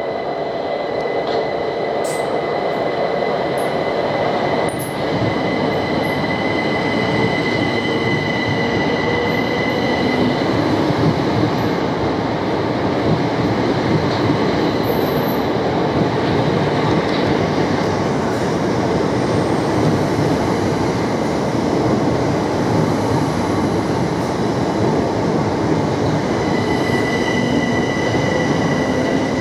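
Electrostar electric multiple-unit trains moving along the platform: a steady rumble of wheels on rail. High whining squeal tones fade out about ten seconds in and return near the end.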